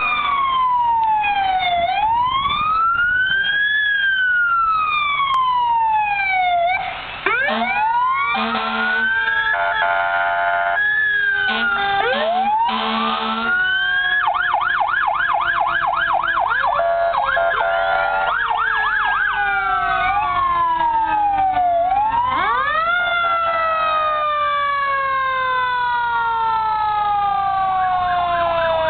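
Fire truck sirens sounding as the trucks drive past: a slow rising and falling wail, then several sirens overlapping, with a fast yelp in the middle stretch. Short blasts of a steady horn come in about eight to thirteen seconds in.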